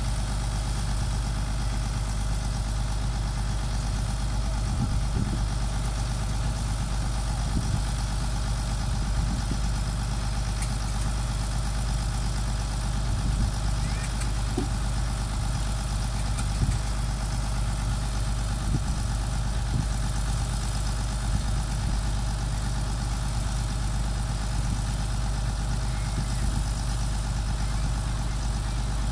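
0.7 m³ Caterpillar excavator's diesel engine idling steadily, with a few faint knocks along the way.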